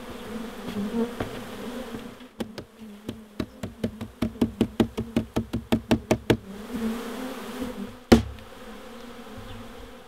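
Honeybee swarm buzzing, with a quick run of about twenty knocks, around five a second, as the box the bees cling to is banged against the hive to shake them off, then one heavier thump near the end.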